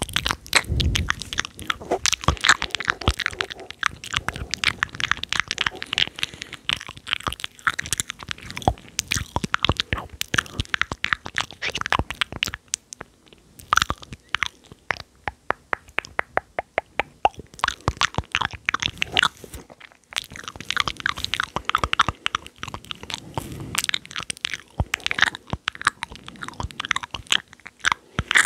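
ASMR mouth sounds: a dense stream of sharp, wet clicks and smacks from the tongue and lips. In the middle they thin out to a quieter, evenly spaced run of clicks before growing dense again.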